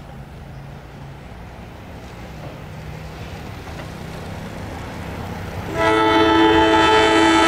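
Diesel locomotive of a passenger train approaching: a low engine and rail rumble grows louder, then about six seconds in its horn sounds a loud, steady chord, a warning to people near the track.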